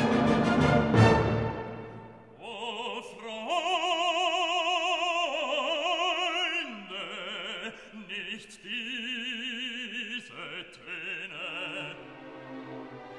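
Background music: a loud orchestral passage fades out about a second and a half in, and then an opera singer comes in, holding long notes with a strong vibrato over quiet orchestral accompaniment.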